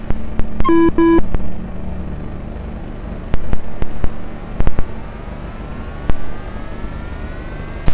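Small RC car's electric drive running over stony ground: a steady hum and rumble broken by sharp clicks and knocks, with a faint whine rising in pitch over the last few seconds. A pair of short electronic beeps sounds about a second in and again at the end.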